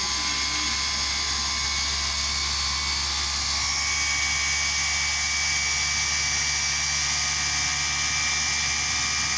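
Treadmill DC motor running at full speed on rectified mains, current-limited by a series 200 W bulb, giving a steady high-pitched whine. This is the sound of a healthy motor.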